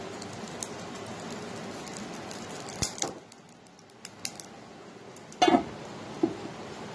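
Oil sizzling on a live piece of charcoal set in a steel bowl on cooked mince, smoking the dish, for about three seconds with a sharp click at the end. An aluminium pan lid is then set down with a metallic clank about five and a half seconds in, followed by a lighter knock.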